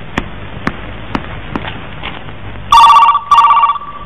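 A telephone starts ringing about two-thirds of the way in, with two short rings in quick succession in the double-ring pattern. Before it, faint regular clicks come about twice a second.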